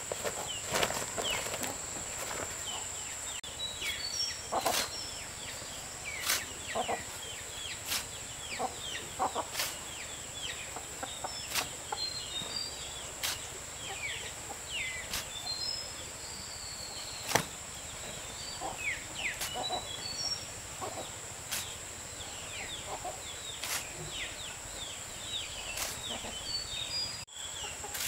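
Sharp knocks repeat every one to two seconds, with many short falling bird chirps and a steady high-pitched insect drone underneath.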